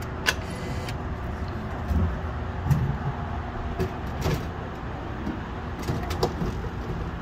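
Steady low rumble of road traffic, with a few separate sharp clicks and knocks over it.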